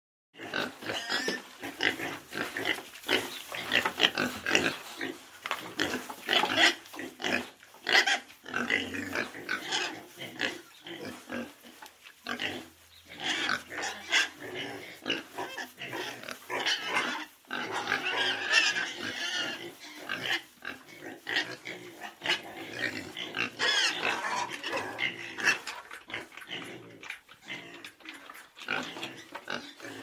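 A small group of pigs in a pen calling, a constant stream of short, irregular, overlapping calls.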